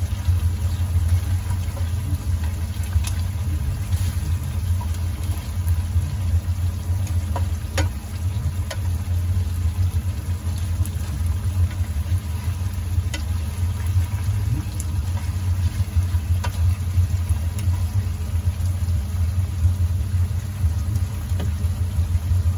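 Chicken pieces frying in rendered fat in a wok, with scattered pops and crackles of the oil. Under them runs a steady low hum, the loudest thing heard.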